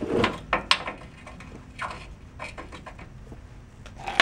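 Scattered metallic clinks and taps as a steel deep socket is handled and slipped over a rusty leaf-spring U-bolt nut, with one louder sharp clack just before the end.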